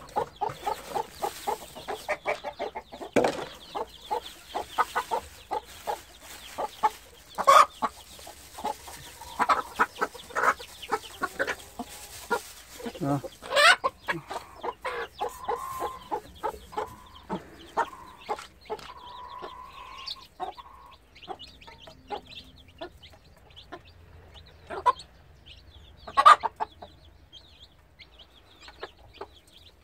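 Mother hen clucking in short repeated calls among her brood, with a few louder calls standing out now and then.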